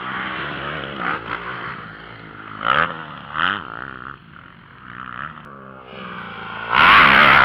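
Motocross motorcycle engines revving, the pitch climbing and dropping with the throttle, with short sharp blips of revs. Near the end the sound jumps suddenly to much louder.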